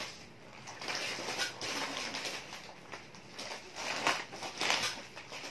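Plastic snack packets and a bag rustling and crinkling as they are handled and pulled out by hand, in two spells.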